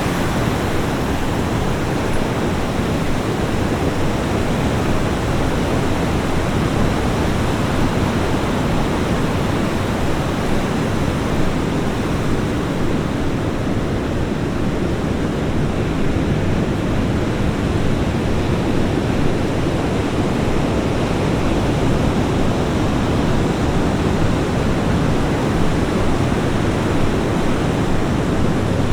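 Ocean surf washing onto a beach: a steady, dense rush of breaking water with no distinct single wave crashes.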